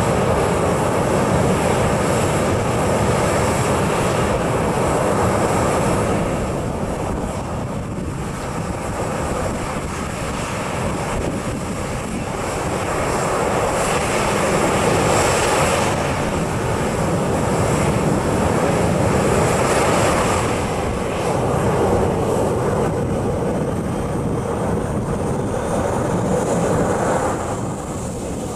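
Boeing 737-800's CFM56-7B jet engines running at taxi power, a continuous rushing jet noise that swells and eases as the airliner taxies past.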